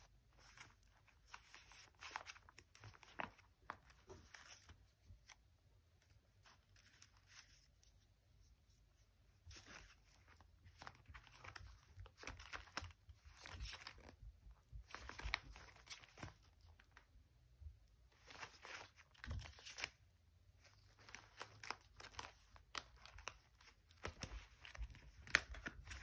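Faint rustling and crinkling of clear plastic binder sleeves and the paper cutouts inside them, handled and flipped through in short irregular spells with quiet gaps between.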